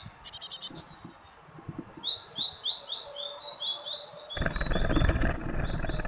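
Great tit calling: a rapid series of short high chirps, about four a second. Then a loud rustling rush of noise, the loudest sound here, starting about four seconds in and lasting about two seconds.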